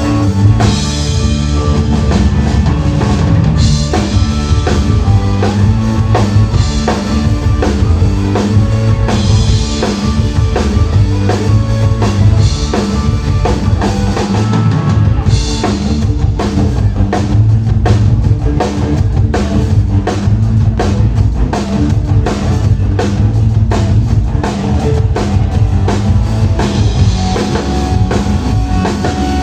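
A live band playing rock music, the drum kit to the fore with bass drum and snare over steady bass and guitar. From about halfway through, the drums play a fast, even run of hits.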